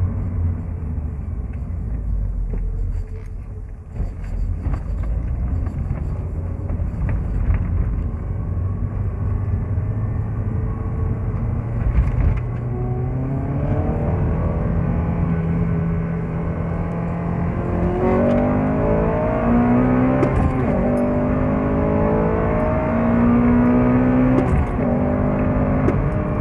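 Stock Honda Civic Type R FN2's 2.0-litre four-cylinder i-VTEC engine and factory exhaust: a low, even rumble at first, then the engine note climbs in pitch several times in the second half as the car accelerates.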